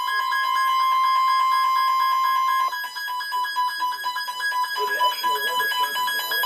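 Emergency Alert System attention tone for a tornado warning: a loud, steady electronic tone with many overtones. After about two and a half seconds it turns choppy and pulses rapidly.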